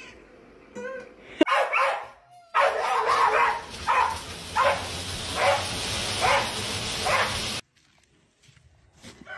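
A dog barks about six times, roughly once a second, over the steady whir of the dog treadmill it is on. Before that, a cat meows briefly.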